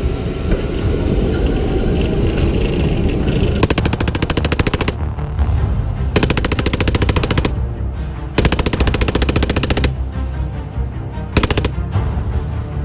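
A machine gun mounted on an M1A2 Abrams tank firing four bursts of rapid, evenly spaced shots: three of just over a second each, then a short one near the end.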